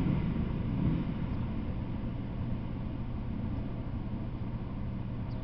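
Low rumble of a freight train that has just gone by, fading away over the first second or so and leaving a steady low hum and faint hiss.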